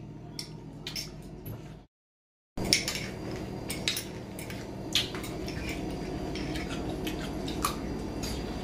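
Spoons clinking and scraping against metal bowls while eating, as scattered light clicks over a steady low hum. All sound cuts out briefly about two seconds in.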